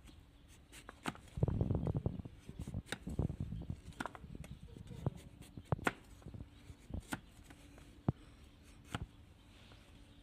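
Trimming a donkey's hoof: irregular sharp clicks and snips of the trimming tools on the hoof, with two denser scraping stretches about a second and a half in and about three seconds in.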